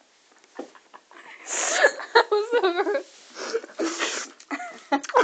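Wheezing, squealing laughter with sharp breathy gasps, starting about a second in.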